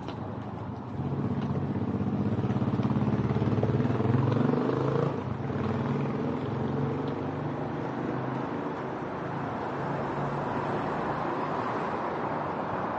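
Street traffic: a road vehicle's engine running close by, getting louder about a second in and dropping away after about five seconds, leaving a steady wash of traffic noise.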